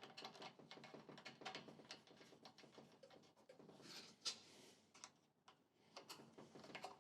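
Faint clicks and taps of small metal engine parts being handled, such as the fuel tap sediment bowl and its nut. A brief rustle comes about four seconds in, followed by a slightly louder click.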